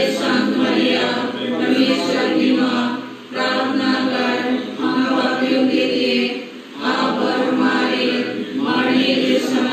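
A group of voices singing a devotional chant together in unison, in phrases of about three seconds with short breaks between them.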